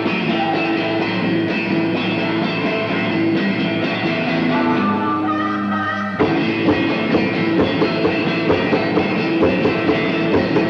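Live rock band: electric guitar chords ring out, and about six seconds in the full band with drums comes in on a steady beat.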